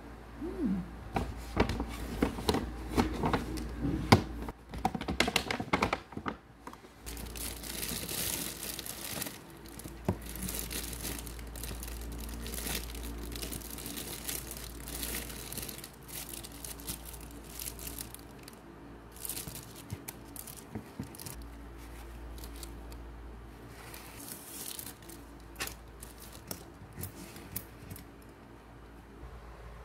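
Packaging crinkling and tearing open, in a dense run of crackles and rips for the first six seconds or so, then quieter scattered rustles and clicks.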